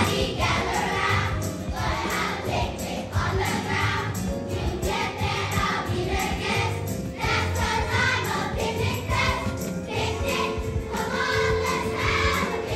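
Children's choir singing with musical accompaniment.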